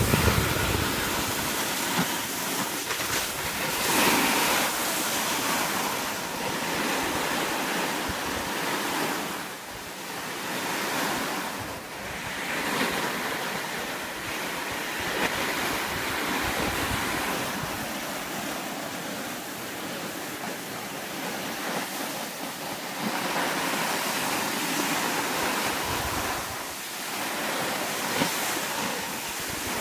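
Steady hiss of sliding over packed snow, swelling and fading every few seconds, mixed with wind on the microphone.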